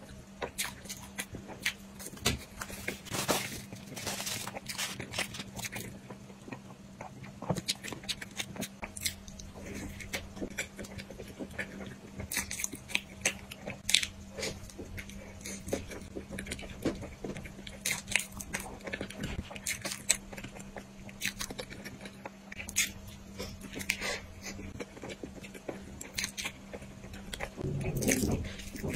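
Close-miked eating of a soft sponge cake roll: bites, wet chewing and mouth smacks, many short, irregular clicks, with a low steady hum underneath.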